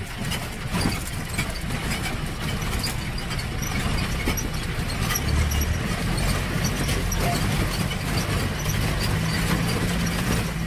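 Jeep driving over a rocky riverbed, heard from inside: the engine runs with a steady low rumble while the body knocks and rattles over the stones.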